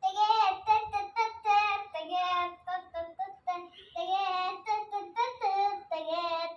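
A child singing a rhythmic tune in quick, short held syllables.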